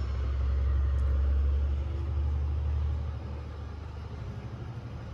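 Low rumble of a passing vehicle, swelling over the first few seconds and fading about three seconds in.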